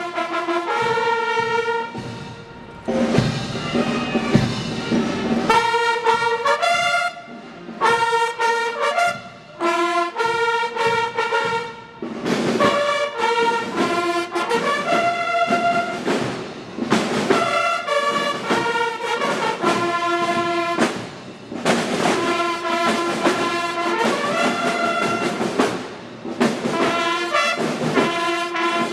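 Massed military band bugles playing loud fanfare phrases of held notes, broken by short breaks every few seconds.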